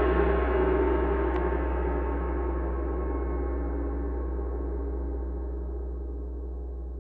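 A large gong ringing out after a single heavy strike, its many tones fading slowly, with a deep low rumble beneath.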